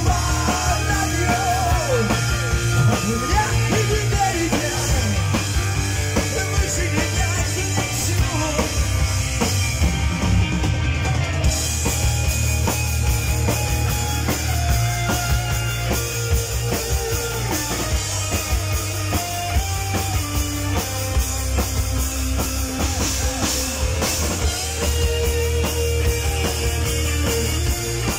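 Live heavy metal band playing: electric guitars, bass guitar and drum kit, with a singer's voice.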